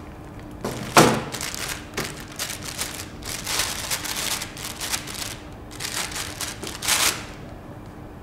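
A baking tray set down on a stainless steel bench with a single clunk about a second in, then repeated short rustling and patting as hands press scone dough on the tray's baking paper, over a steady low hum.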